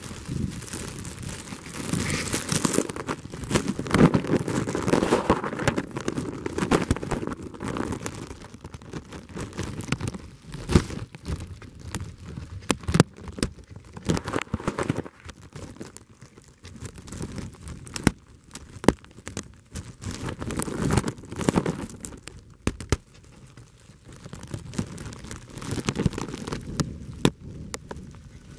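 Handling noise on the camera's microphone: rustling and crackling in uneven swells, with many sharp clicks scattered through it.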